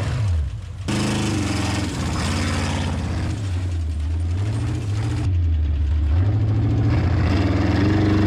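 Sand rail's engine running at close onboard range as it drives over rough desert dirt, its pitch rising and falling several times as the throttle is worked.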